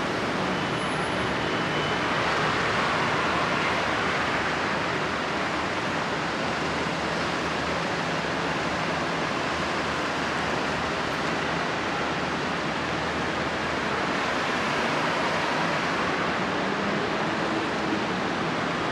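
Steady outdoor rush of road traffic and wind, even and unbroken throughout.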